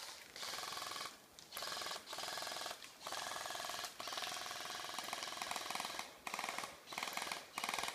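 An airsoft gun firing full-auto: a fast, even rattle of shots in a string of bursts about a second long, with short breaks between them.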